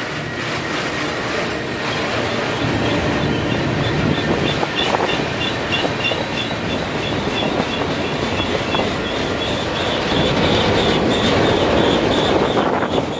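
Freight cars rolling past on the rails with steady wheel rumble and clatter. A high, pulsing wheel squeal starts about two seconds in and grows louder near the end.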